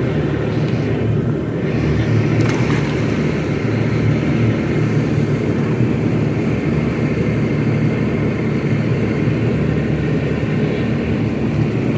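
Yamaha jet boat running steadily underway: a constant low engine drone with a rushing noise of water and wind over it.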